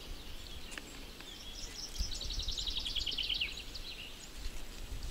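A songbird singing a quick trill of repeated high notes that slides slightly down in pitch, about two seconds in, among scattered faint chirps over a low outdoor rumble.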